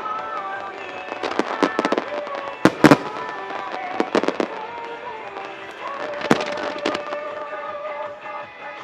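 Star Mine fireworks bursting in a string of sharp bangs, several about a second or two apart, the loudest near the start and middle. Music with a melody plays throughout.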